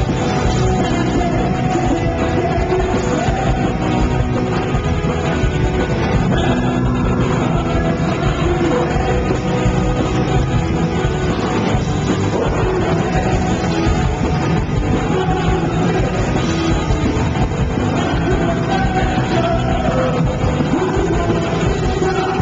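Punk rock band playing live at full volume: electric guitars, bass and drums, with a singer on the microphone.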